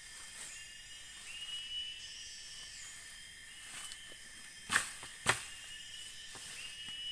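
Steady high insect chorus of a tropical bamboo forest, with short rising chirps repeating every second or so. About two-thirds of the way in come two sharp cracks half a second apart, from dry bamboo litter underfoot on a steep slope.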